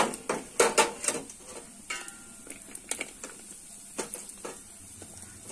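Chopped dry fruits and raisins frying in a spoonful of hot ghee in a steel pot: scattered ticks and small clinks against the metal, with a few louder clatters in the first second.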